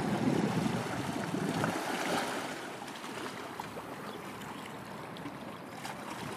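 Wind on the microphone over the wash of sea water, a steady rushing noise with low gusts that eases slightly after about three seconds.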